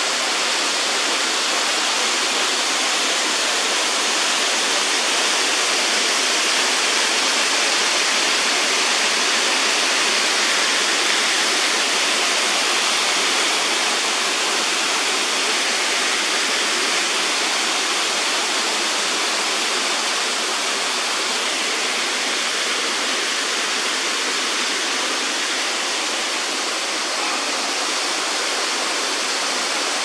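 Waterfall: water pouring down a rock face and splashing, a steady, even rushing.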